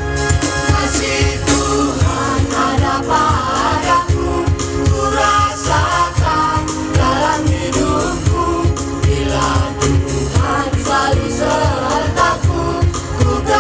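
A group of singers performing a song live on stage, amplified through speakers, with band accompaniment and a steady drum beat underneath.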